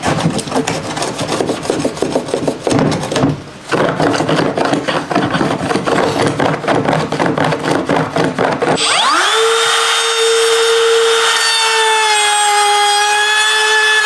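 Small hand plane scraping and shaving the edge of a plastic water tank in rapid repeated strokes, with a short pause a few seconds in. About nine seconds in, a Makita cordless trim router spins up with a rising whine and then runs at a steady high pitch.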